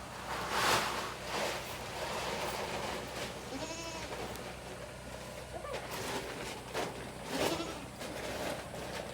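A goat bleating once, a short quavering call about three and a half seconds in, with a few short scuffing noises around it.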